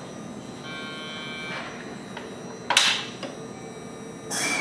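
JR Kyushu 821 series electric train standing with its doors shut: a brief electronic tone about a second in, then a short sharp air hiss near three seconds and another starting near the end, as the air brakes vent before departure.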